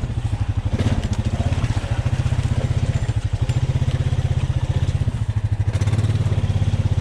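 Honda Rubicon ATV engine running steadily at low throttle, an even rapid putter.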